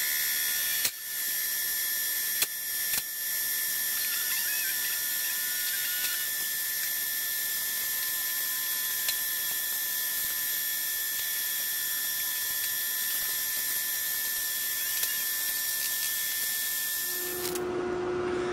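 Portable line boring machine running, its boring bar turning and cutting steel inside a hitch bore: a steady high-pitched whine with a few clicks in the first three seconds. Near the end it gives way to a lower steady hum.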